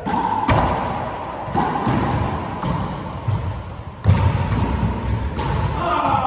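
Handball rally in a walled court: a string of sharp smacks as bare or gloved hands strike the small rubber handball and it hits the walls and floor, about six in all, the loudest about four seconds in.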